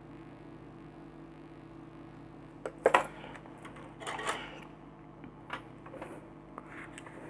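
Small hard objects clinking and clattering on a work surface: a sharp clack about three seconds in, a rattling cluster a second later and a few lighter taps, over a steady low hum.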